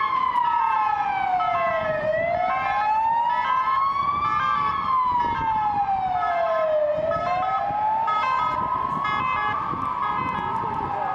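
Emergency vehicle siren in a slow wail, rising and falling over about five seconds per cycle, with short steady tones cutting in and out over it and road noise from the moving vehicle underneath.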